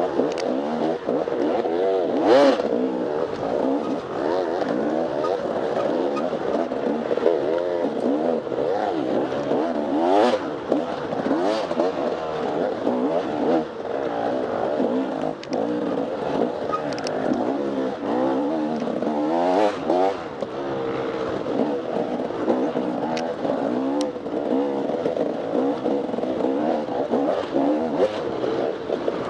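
Off-road dirt bike engine revving hard and constantly, its pitch climbing and dropping every second or so through throttle changes and gear shifts, with a few sharp knocks from the bike over rough terrain.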